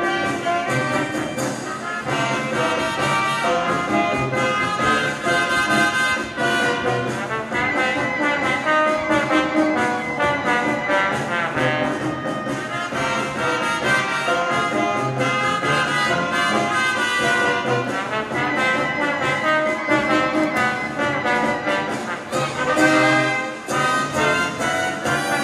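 Peruvian folk dance music with brass instruments, playing steadily over the stage loudspeakers.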